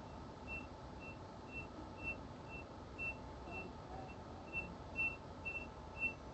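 Carbon monoxide alarm sounding: short, high electronic beeps repeating steadily about twice a second, the alarm for carbon monoxide detected in the house.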